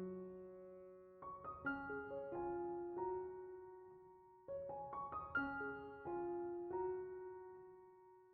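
Soft background piano music: phrases of notes that ring and slowly fade, with a new phrase starting about a second in and another about halfway through.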